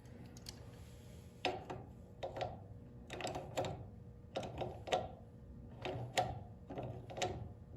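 Repeated metallic clicks and scrapes of a small wrench turning the nut on a garage door opener's threaded chain-tensioner bolt, taking up slack in the drive chain. The strokes come often in pairs, about once a second, starting about a second and a half in.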